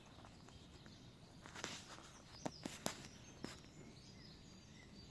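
Quiet outdoor background with a few faint sharp clicks and ticks, clustered between about one and a half and three and a half seconds in, and faint bird chirps.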